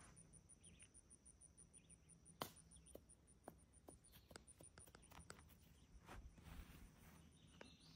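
Near silence: a faint, high-pitched insect call pulsing evenly about five times a second, with a few soft clicks scattered through.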